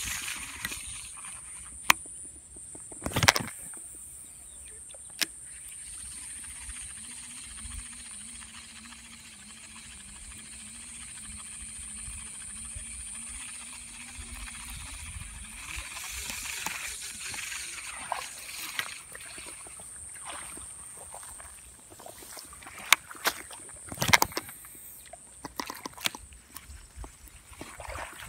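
Handling noise of a Shimano Curado baitcasting reel and rod: scattered clicks and knocks, several in quick succession near the end, over a steady high-pitched hiss.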